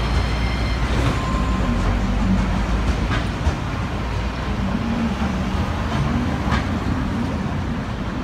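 Sapporo streetcar A1200 'Polaris' low-floor tram pulling away from the stop and running off along the street track: a steady low rumble of motors and steel wheels on rail, slowly fading as it goes.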